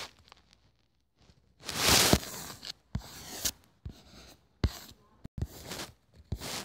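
Handling noise close to the tablet's microphone: irregular rustling and rubbing, loudest about two seconds in, with a few sharp taps.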